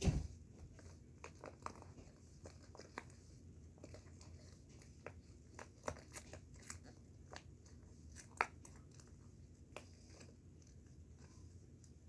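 Faint, scattered clicks, taps and crinkles of small plastic and silicone fidget toys being handled, with one sharper click about eight seconds in.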